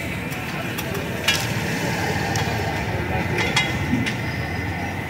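Metal spatula clinking and scraping on a large iron tawa a few times, with the sharpest clink about a second in, over the steady noise of a busy street-food stall.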